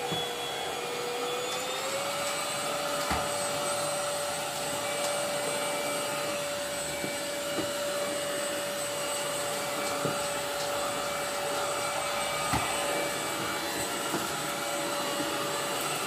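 MOOSOO cordless stick vacuum running steadily while cleaning carpeted stairs: a steady motor whine that steps up slightly in pitch about two seconds in, with a few light knocks.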